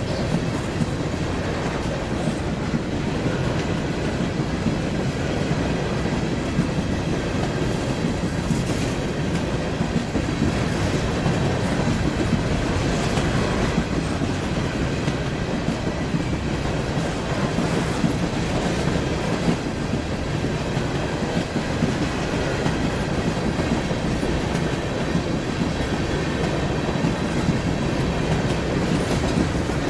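Norfolk Southern freight train of covered hopper cars passing at a steady pace, its wheels running over the rails in an unbroken rumble.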